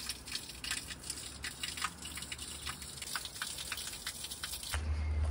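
A thin stream of spring water pouring from a spout and splashing irregularly onto a drain grate. Near the end it cuts off abruptly and gives way to a low steady rumble.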